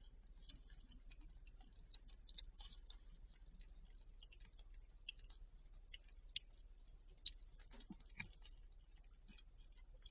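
Faint wet clicking and chewing of a cat eating a placenta after giving birth, with one sharper click about seven seconds in. A low steady hum runs underneath.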